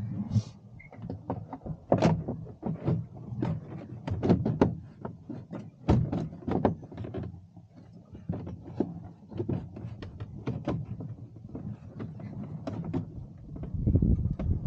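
Irregular knocks, thuds and rubbing as equipment and wiring are shifted around by hand inside a fiberglass boat locker, with a heavier low thump near the end.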